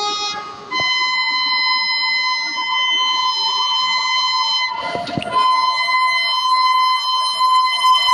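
WAP-7 electric locomotive's air horn sounding one long, loud, continuous blast as the train approaches to run through the station, with a brief break just under a second in. A short rush of noise comes about five seconds in.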